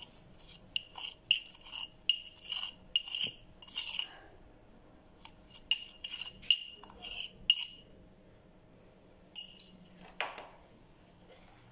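Metal teaspoon clinking and scraping against a glass jar while powdered sugar is scooped out, in two runs of quick, ringing taps with a short pause between. A duller knock comes near the end.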